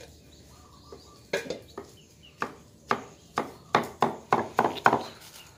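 Cleaver chopping termite mushrooms on a wooden chopping block: a few spaced strikes at first, then quicker chopping at about four strikes a second in the second half.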